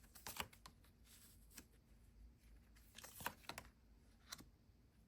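Near silence with a few faint clicks and short rustles of tarot cards being handled and laid down, in a small cluster about three seconds in.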